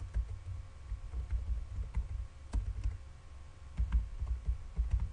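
Typing on a computer keyboard: irregular key clicks over dull, low thumps.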